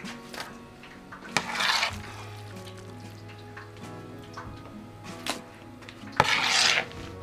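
A plate scraping up cooked rice from a wooden table to move it into earthenware bowls: two brief scraping sweeps, each starting with a click, about a second and a half in and again near the end.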